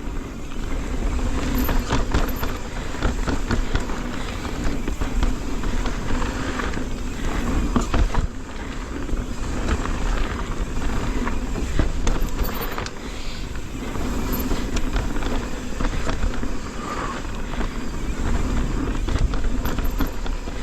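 Transition Sentinel mountain bike descending a dirt trail: a steady rumble of tyres and wind on the microphone, with frequent clatters and knocks from the bike over bumps.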